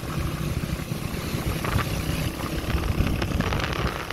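A car driving along: steady engine and road noise.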